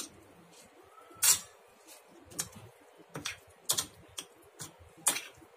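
Spoon clinking and tapping against a glass bowl while stirring fried onions into yogurt, in irregular light taps, the sharpest about a second in and near the end.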